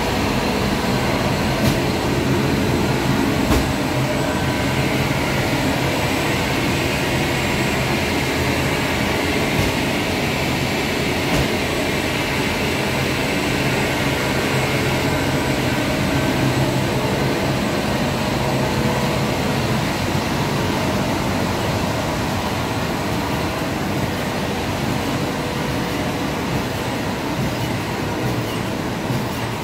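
Steady mechanical din of a running blown-film plastic extrusion line, with its extruder drive, motors and film winder all running, a low hum throughout and a few brief clicks.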